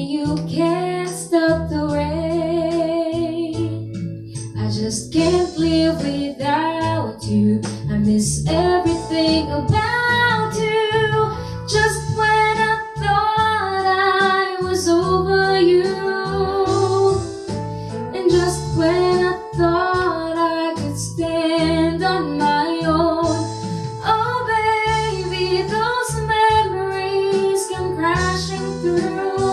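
A woman singing a love song with held, sustained notes over instrumental accompaniment.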